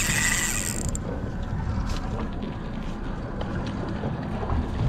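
A fishing reel's drag whines steadily as a hooked fish takes line, then cuts off about a second in. After that there is a low rumble of boat and water with faint clicks.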